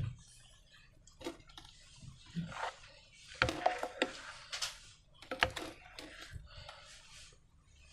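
Slime being handled by hand, with irregular short crackles and squelches and a few sharper clicks.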